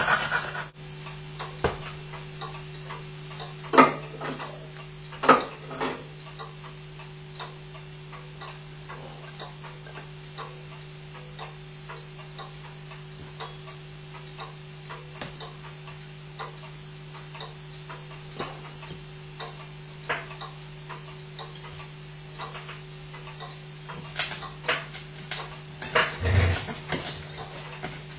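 Steady low hum with light, repeated ticking clicks over it. A few sharper clicks come about four to six seconds in, and a busier patch of louder clicks and a low thump comes near the end.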